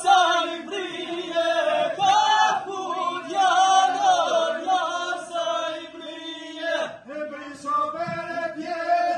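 A group of voices singing a chant-like folk song together, loud and continuous, over a held low note.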